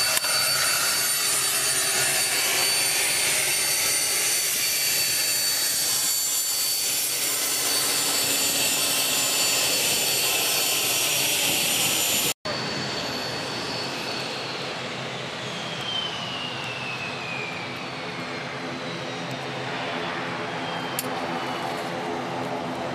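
Loud, steady engine and propeller noise heard inside the cabin of a single-engine light aircraft. After an abrupt cut about 12 seconds in, a quieter sound follows: a small business jet's engines running as it taxis, with a turbine whine that slowly slides down in pitch.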